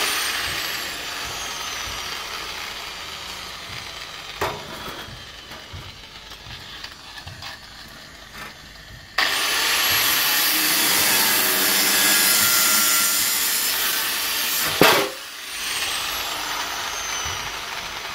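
Handheld electric angle grinder with a cutting disc. It is spinning down at first, then is switched on again about nine seconds in and cuts through a sheet-metal panel with a loud, steady grinding for about six seconds. It is switched off and its whine falls away.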